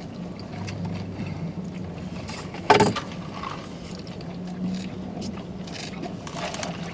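Small handling sounds of takeout food and drink cups, light rustles over a steady low hum in a parked car's cabin, with one short sharp clatter about three seconds in, the loudest sound.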